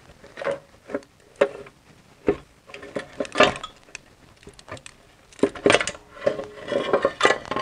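A freed cast-metal oil pan being worked down and out from under a BMW X3's engine: irregular clanks, knocks and scrapes of metal on metal, coming thicker in the last couple of seconds.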